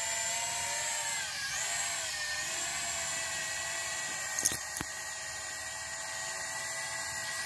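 Small toy quadcopter drone's motors and propellers whining steadily at a high pitch, dipping briefly in pitch about a second and a half in before coming back up. A couple of sharp clicks about four and a half seconds in.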